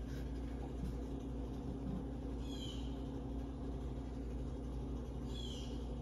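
Hunter Caicos ceiling fan running with a steady low motor hum. A short, high, falling chirp sounds twice, about three seconds apart.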